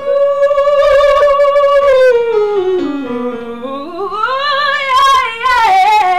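A woman's singing voice doing a vocal warm-up: one long unbroken sung note with vibrato. It is held steady, slides down to a low note about halfway through, then glides back up high.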